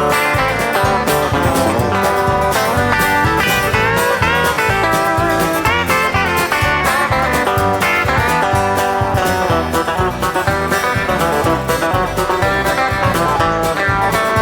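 Instrumental country music: an uptempo band with guitars over a steady beat, with bending lead notes.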